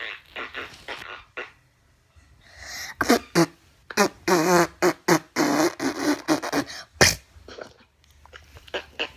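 Diarrhea sound effects: a rapid run of short fart-like sputters, then a longer wavering, spluttering stretch ending in a sharp pop about seven seconds in. Quick sputters start again near the end.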